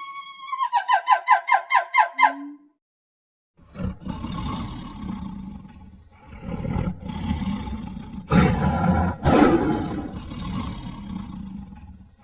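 Tiger roaring and growling in several long, rumbling stretches, loudest about two-thirds of the way in. Before it, a short high-pitched animal call breaks into rapid pulses, about six a second.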